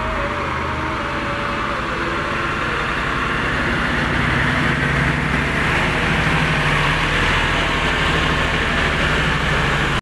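Mitsubishi Fuso heavy truck's diesel engine pulling away under the load of an excavator on its bed, a steady low rumble that grows louder about four seconds in as the truck drives past.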